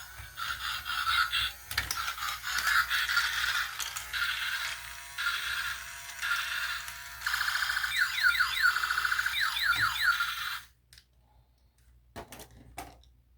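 Tinny electronic sound effects and melody from a toy vehicle's sound chip, with repeated falling siren-like sweeps toward the end. It cuts off abruptly about ten and a half seconds in, followed by a few faint clicks.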